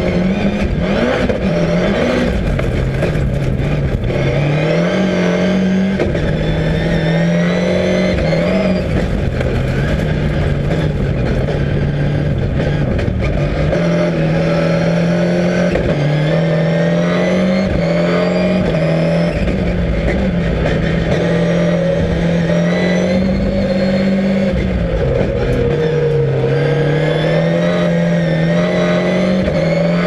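Ford Focus rallycross Supercar's turbocharged four-cylinder engine heard from inside the cabin, revving hard and dropping back again and again as it shifts gears and lifts for corners.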